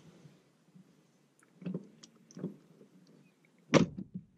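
A few soft knocks and rustles of handling inside a car cabin, then one sharp, loud knock near the end followed by a smaller one.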